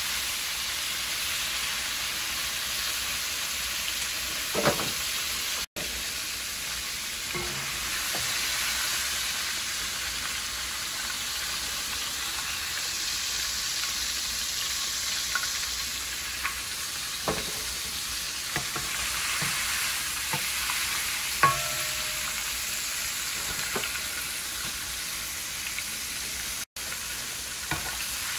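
Flour-battered conch pieces frying in hot oil, a steady sizzle, with a few clicks of a slotted spoon against the pan as they are stirred and lifted.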